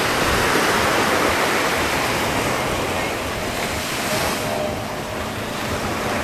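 Small surf waves breaking and washing up a sandy beach: a steady rushing, with some wind buffeting the microphone.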